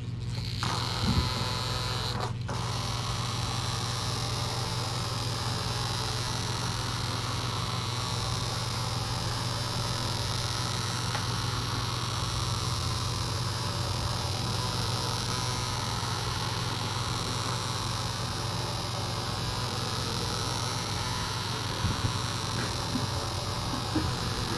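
Steady low electrical hum with a faint even hiss, with no clear event over it.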